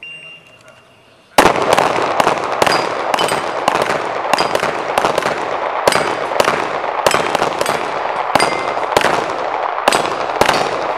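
A shot-timer start beep, then about a second and a half later two handguns open fire in rapid, overlapping strings of shots, roughly two to three a second, as both shooters knock down steel plates in a head-to-head shoot-off. Some hits ring on the steel, and the shots echo off the range walls.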